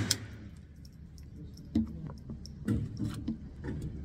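The echo of the last .22 shot fades, then a few muffled knocks and clicks, about four over the second half, as the Remington Nylon 77 .22 rifle's action is handled after a failure to feed.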